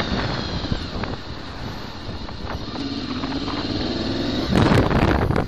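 Motorcycle riding through town traffic: wind rushing over the camera microphone over a faint low engine note. A louder gust of wind rush comes near the end.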